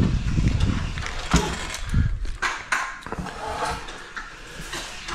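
Mechanical handling noise: a low rumble at the start, then a few scattered sharp clicks and knocks.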